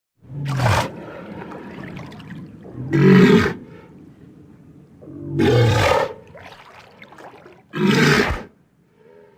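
Walrus grunting: four loud, harsh calls spaced about two and a half seconds apart, each lasting under a second. A steady noise fills the gaps between them.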